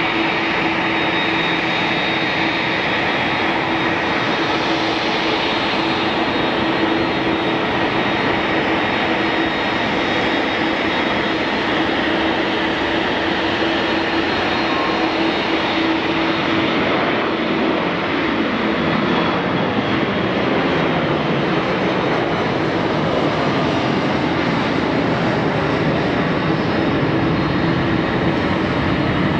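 Boeing 737-500 airliner's CFM56-3 turbofan engines at takeoff thrust: a steady, loud jet roar with a low hum and a thin whine running through it as the plane lifts off and climbs away. The roar's tone wavers a little past the middle.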